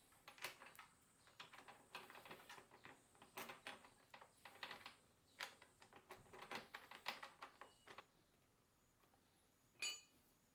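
Faint rapid clicking and light knocking that stops about eight seconds in, then one short high-pitched squeak near the end.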